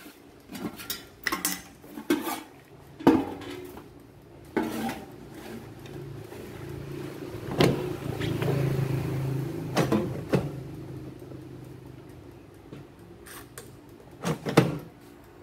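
Tools and small parts knocking and clicking on a workbench during hands-on repair work: a dozen or so separate sharp knocks, with a low steady hum rising and fading over a few seconds in the middle.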